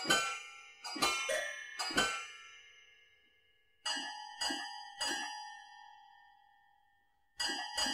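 Solo piano playing sharp, accented dissonant chord clusters, each struck and left to ring: a quick group of about four near the start, three more about four seconds in, and a new group near the end.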